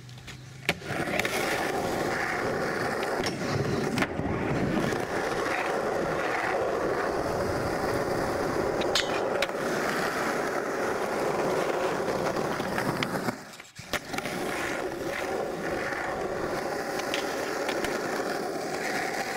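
Skateboard wheels rolling on rough concrete, a steady grinding rumble, with a few sharp knocks along the way. The rolling drops out for a moment about two-thirds through, then picks up again.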